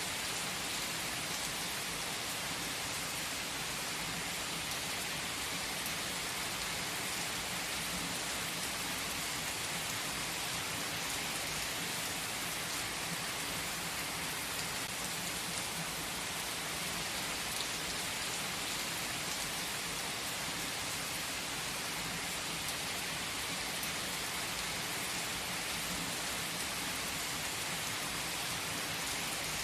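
Steady rain, an even hiss that holds unchanged throughout.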